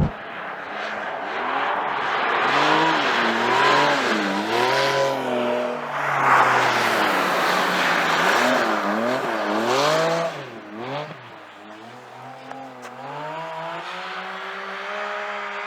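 Porsche 718 Cayman GT4 RS's naturally aspirated flat-six engine revving up and down over and over as the car drifts, with tyre squeal mixed in. The sound drops in level about ten seconds in, and the engine holds a steadier, quieter note to the end.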